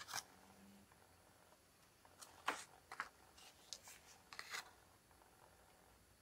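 Faint handling noise of card stock and a steel ruler: one brief click at the start, then a cluster of short rustles and light taps a couple of seconds in as the paper and ruler are moved about.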